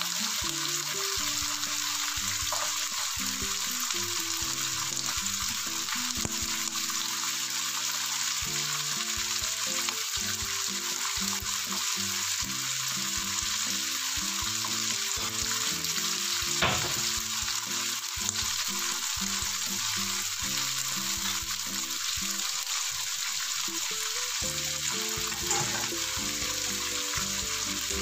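Cut green beans (Baguio beans) frying in oil in a wok: a steady sizzle, with a few sharper pops, the loudest about two-thirds of the way through.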